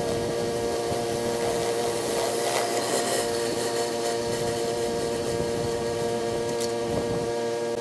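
Pressure washer running steadily: an engine-driven pump drone over the hiss of the water spray.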